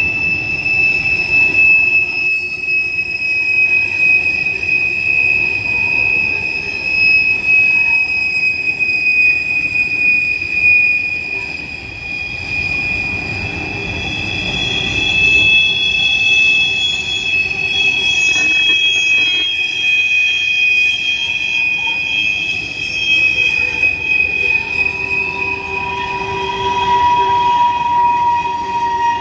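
Empty covered hopper cars of a freight train rolling past, their wheels squealing against the rails in long, steady high-pitched tones as the train turns off onto another line, over the rumble and clatter of the wheels. A second, higher squeal joins about midway, and a lower one comes in near the end.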